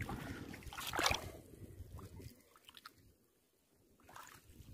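Water sloshing and splashing as a hand net is dragged through shallow water, with a sharper splash about a second in. It then goes nearly quiet for a couple of seconds before faint splashes return near the end.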